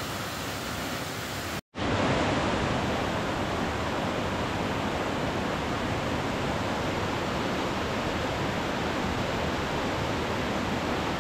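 Waterfall pouring over rock ledges into a creek pool: a steady rush of falling water. It cuts out briefly a little under two seconds in, then comes back slightly louder.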